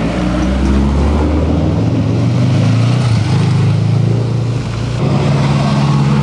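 Car engines passing close by, a loud low drone that rises in pitch midway, with an abrupt change in the sound about five seconds in.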